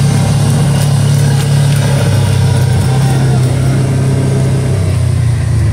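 Side-by-side off-road vehicle's engine running at a steady low drone while driving along a dirt trail, heard from on board; its pitch shifts slightly near the end.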